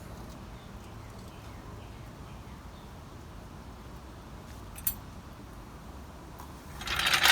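A car jack being let all the way down: a faint steady hum, a single click about five seconds in, then a loud metallic clatter near the end as the jack collapses fully.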